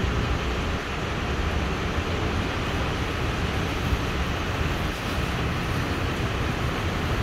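Steady hiss of rain and of tyres on a wet road, over a low traffic rumble.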